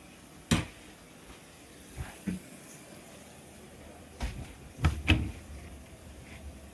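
Several separate knocks and clunks of kitchen things being handled: a sharp one about half a second in, two lighter ones around two seconds, and a cluster of three near the end.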